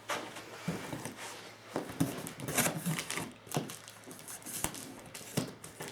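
Packaging rustling with scattered knocks and clicks as the contents of an opened shipping box are handled and moved about.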